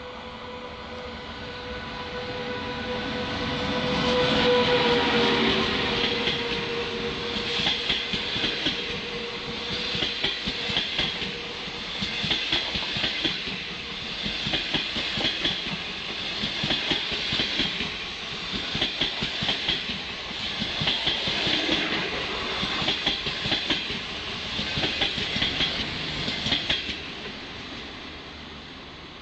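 SS8 electric locomotive approaching and passing with a steady whine that peaks about five seconds in. Its 25Z passenger coaches follow, clattering past with wheels clicking over the rail joints in groups every couple of seconds, then fading out near the end.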